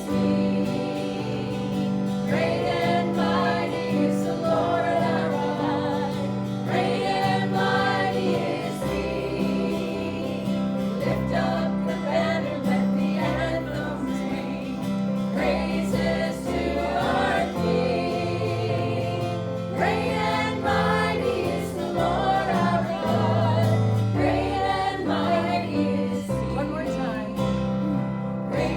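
Gospel singing: several voices singing together over instrumental accompaniment with a steady bass line.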